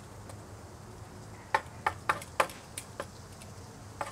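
Large kitchen knife knocking and scraping on a wooden cutting board while chopped cilantro sauce is worked together: about six sharp, uneven taps, starting about one and a half seconds in.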